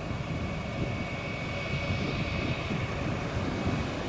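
Airbus A319's two CFM56 turbofan engines at low taxi power: a steady low rumble with a thin, high, steady whine.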